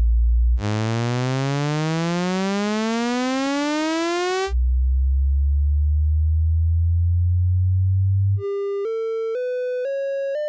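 Speaker-cleaner test tones meant to shake water and dust out of a phone speaker. A deep bass hum gives way to a buzzy tone that glides steadily upward for about four seconds. Then comes another low hum, and near the end a run of short beeps that climb in pitch step by step, about two a second.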